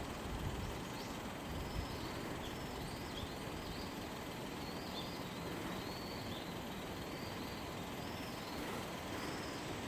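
Small birds chirping repeatedly in short, high calls, over a steady background rumble.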